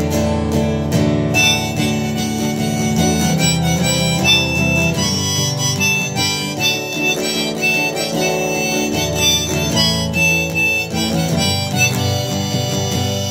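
Strummed acoustic guitar, joined about a second and a half in by a harmonica playing a melody of held notes.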